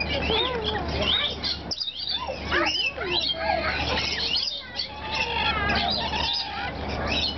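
Rainbow lorikeets calling: many short, squeaky calls that rise and fall, overlapping without a break.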